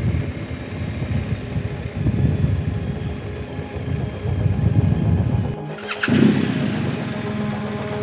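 BMW GS boxer-twin motorcycle engine running at low speed, with wind noise on the helmet or bike microphone. About two-thirds of the way through the sound cuts off abruptly, then resumes as a steadier engine hum.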